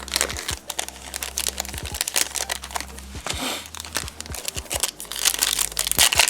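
Foil trading-card pack wrapper crinkling and rustling in irregular bursts as the cards are handled.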